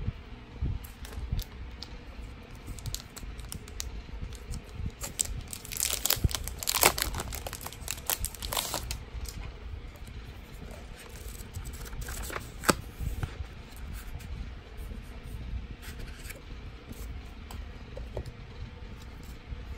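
Plastic stationery packaging crinkling and rustling as it is handled, in irregular crackles that are densest and loudest a third of the way in, with one sharp click about two-thirds of the way through.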